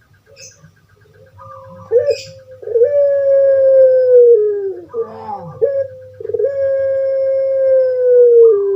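Puter pelung (Barbary dove, Streptopelia risoria) singing its drawn-out coo: a short opening note, then a long, loud held note that sinks in pitch at its end, given twice.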